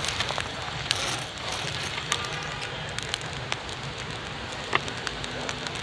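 Steady crackly hiss of street-stall background noise, with a handful of sharp light clicks from metal serving tongs and utensils handling the food.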